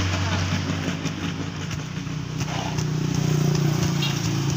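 An engine running steadily with a low, even hum. Under it, a few soft knocks from a wooden pole pounding sawdust down inside a plastic bag.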